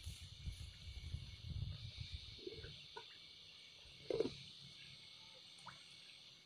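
Steady high-pitched chorus of insects, with a low rumble of handling on the microphone in the first two seconds and a short thump about four seconds in.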